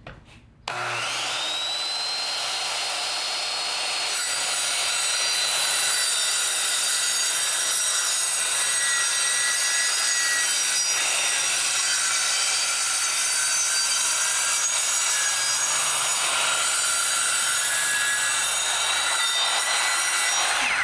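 Bosch handheld electric circular saw starting up with a whine that climbs in pitch over about a second, then running steadily as it crosscuts through a wooden board, its blade set shallow so it just nicks the 2x4s underneath. The sound cuts off sharply at the end.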